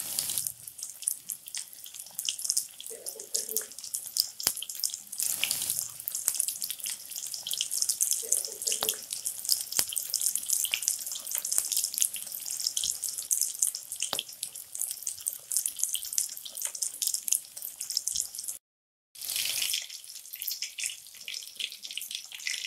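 Masala-coated fish steaks sizzling in hot oil in a kadhai: a dense, steady crackle with frequent sharp spattering pops. It breaks off for a moment near the end, then carries on.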